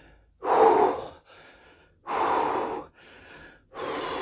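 Heavy, labored breathing of a man doing push-ups: three loud breaths about a second and a half apart, each followed by a quieter one, from the strain of a fast two-minute push-up test.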